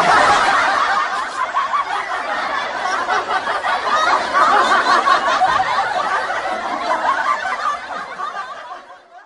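Canned laughter: a crowd of people laughing together, starting suddenly and fading out near the end.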